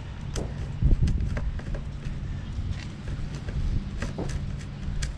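Honda Harmony II lawnmower's overhead-cam engine running rough with a steady low hum, kept going on sprayed carb cleaner, amid scattered clicks and knocks. The owner takes this for a carburetor that needs a good cleaning, perhaps a clogged jet.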